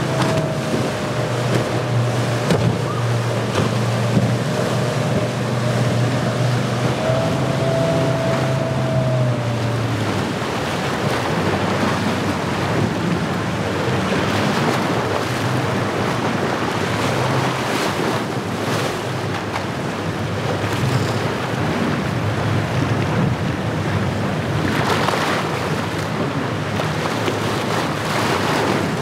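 Suzuki outboard motor running steadily with a faint whine over surf and wind noise on the microphone; the engine fades out about ten seconds in. After that, waves breaking and spray splashing dominate, with louder surges a couple of times.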